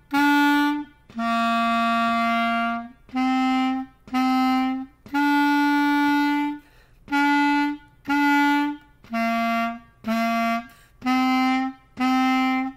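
Clarinet playing a simple beginner melody in separate tongued notes on a few low pitches, some short and some held about twice as long, with brief gaps between them.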